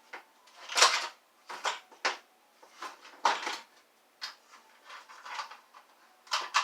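Hard plastic vacuum wand parts being pried and pulled apart by hand: a string of irregular clatters and scrapes, the loudest about a second in and again a little past three seconds.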